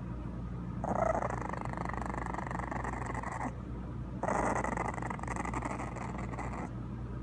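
English bulldog puppy growling twice, each a raspy growl of about two and a half seconds with a short break between.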